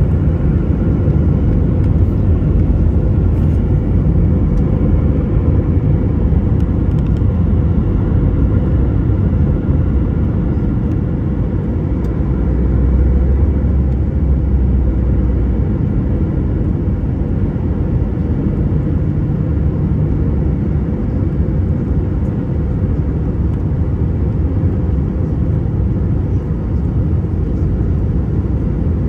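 Jet airliner cabin noise: the steady roar of the turbofan engines and the airflow, heard from a seat over the wing, with a faint steady whine above it.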